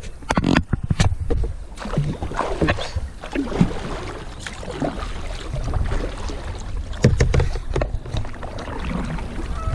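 Kayak paddling: the paddle blades dipping and splashing, water dripping and lapping at the plastic hull in an irregular rhythm, with a few sharp knocks.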